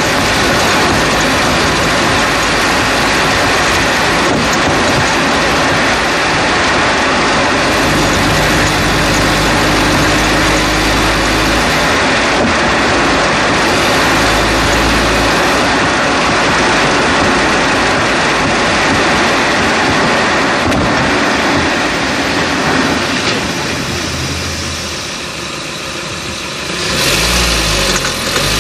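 Road and tyre noise from a moving 2011 Chevrolet Cruze, heard up close at the front right wheel well, with the engine running underneath: a loud, steady rush. It eases off for a few seconds near the end, then the engine note rises and falls again.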